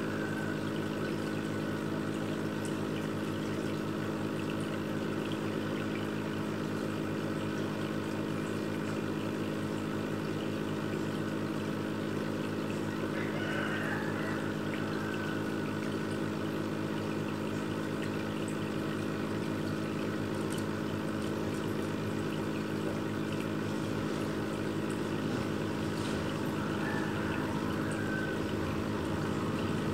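Aquarium pump humming steadily, with water trickling.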